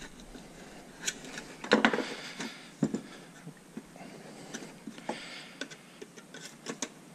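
Thin aluminium lid of a Tesla Model S DC/DC converter being handled and worked at with a knife blade along its seam: scattered light clicks, taps and scrapes of metal, the loudest cluster about two seconds in.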